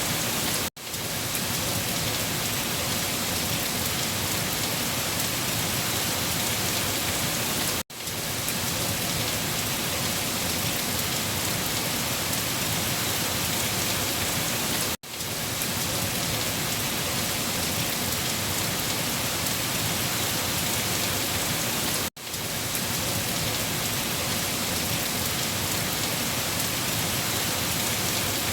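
Heavy rain falling on leaves, a steady even hiss, broken by a brief gap of near silence about every seven seconds.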